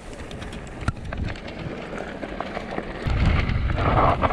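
Mountain bike rolling down a dry dirt and gravel singletrack, heard from a helmet camera: tyres crunching over the trail with clicks and rattles from the bike, and a low rumble that gets much louder about three seconds in.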